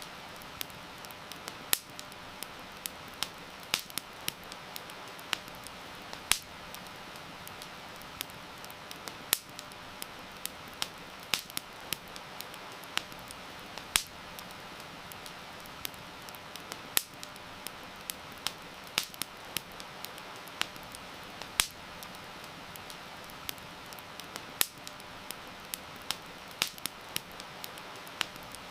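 Wood fire crackling, with sharp irregular pops and snaps over a steady hiss of heavy rain.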